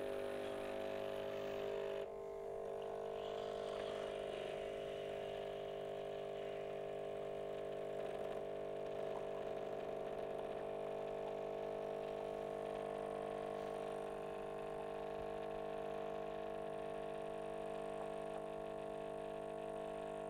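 Expressi Wave (K-Fee) capsule coffee machine's pump running steadily as it brews a large cup, a constant mechanical hum whose tone shifts slightly about two seconds in.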